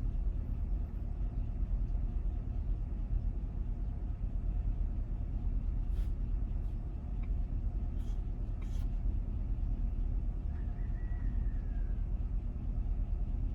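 Chevrolet Caprice PPV engine idling steadily, a low even rumble, with a few faint clicks.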